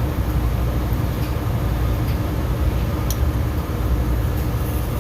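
Steady low mechanical rumble and hum of a commercial cooler's refrigeration unit running, with a faint tick about three seconds in.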